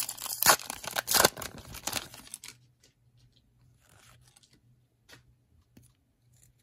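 Wrapper of a Panini Prestige football card pack being torn open, loud crackling and tearing for about the first two and a half seconds. After that come only faint light clicks as the cards are handled.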